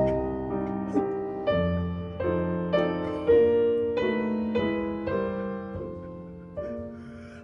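Solo piano background music: slow notes and chords struck about once a second and left to ring and fade.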